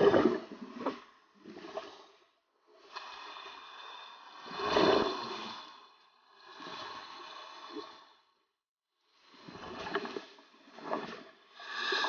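Scuba regulators breathing underwater: short bursts of bubbling exhalation near the start and again near the end, with a longer steady hiss in the middle.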